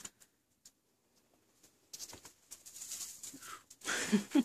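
Near silence at first. About two seconds in, soft rustling and crunching in straw bedding begins. Near the end comes a brief low vocal murmur.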